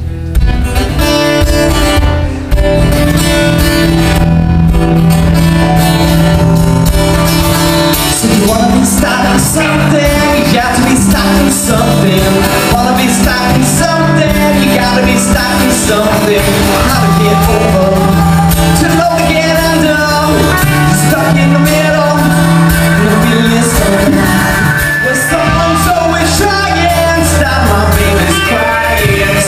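Live rock band playing amplified acoustic and electric guitars with drums, and a male lead vocal over the music.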